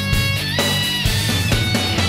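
Background music: a rock track with distorted electric guitar and a steady beat.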